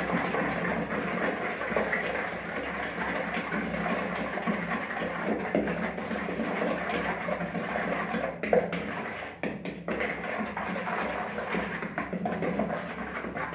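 A utensil stirring water, yeast, sugar and oil in a bowl, with steady rapid clicking and scraping against the bowl as the yeast is dissolved.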